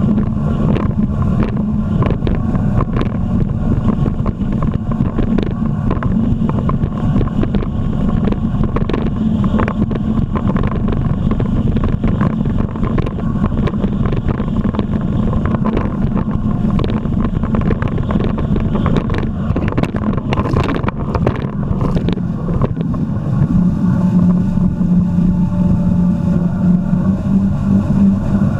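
Jet ski engine running steadily at speed, with frequent short thumps and wind on the microphone; the engine note holds steadier and a little lower near the end.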